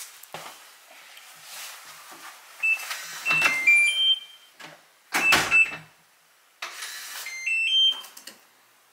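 Digital door lock beeping as the front door is opened and shut: a short stepped beep melody about three seconds in, two single beeps around five seconds, and a rising beep melody near the end, with knocks and rattles from the door and latch in between.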